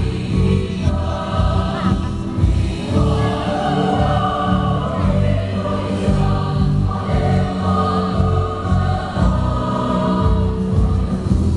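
Women's choir singing, amplified through stage microphones, with notes held for a second or so at a time.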